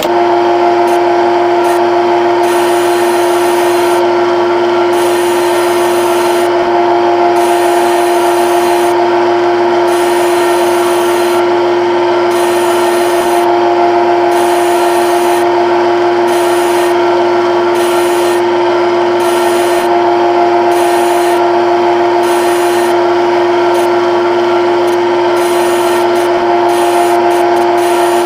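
Synthetic CNC lathe machining sound from a lathe simulator program: a steady spindle hum with a strong held tone over a grinding cutting noise. It starts abruptly as the spindle is switched on, and continues while the tool takes G71 roughing passes, the high hiss dropping out briefly every few seconds.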